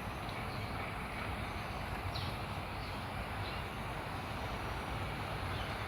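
Steady outdoor background noise, a low even rumble without any distinct engine or motor tone, with one faint short high chirp about two seconds in.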